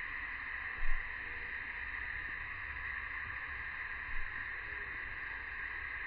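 Steady, even drone of a summer cicada chorus. A dull low thump comes about a second in, and a fainter one near four seconds.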